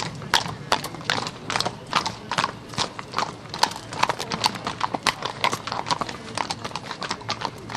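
Horse hooves clip-clopping at a walk: a steady run of sharp, hollow knocks, several a second.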